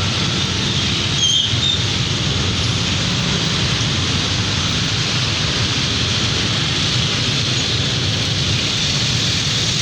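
Bus engine running amid steady road noise and the hiss of rain, with a brief high squeak about a second in.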